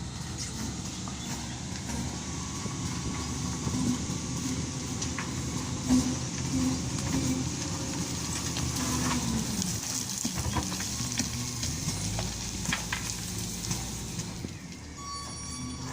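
SDLG wheel loader's diesel engine running, with a hissing wash of noise over it and scattered light knocks; the engine note dips briefly about nine seconds in.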